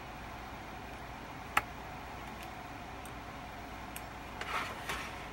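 Pizza cutter wheel working through rolled dough on a floured wooden board: one sharp click about a second and a half in, a few light ticks, then a brief scraping stretch near the end, over a steady low hum.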